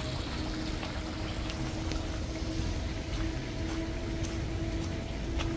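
Steady outdoor background noise: a deep rumble with a constant low hum and a few faint ticks.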